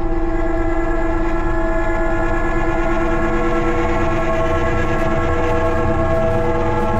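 A loud, steady, horn-like chord of several tones that holds without changing, over a low rumble.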